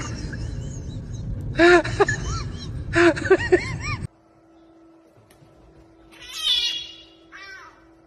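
A chihuahua being held lets out loud, high yelping cries in repeated bursts, each one rising and falling in pitch. After a cut about four seconds in, a cat meows twice, more quietly, the first meow longer.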